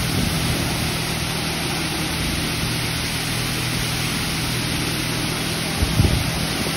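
PDQ LaserWash 4000 touchless car wash spraying high-pressure water over a car: a steady hiss of spray with a steady low hum underneath, and a brief low thump about six seconds in.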